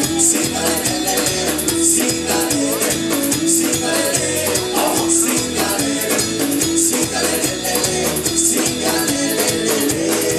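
A ska-fusion band playing live, with drums keeping a steady, even beat under bass and guitars. A bright accent comes back roughly every one and a half to two seconds.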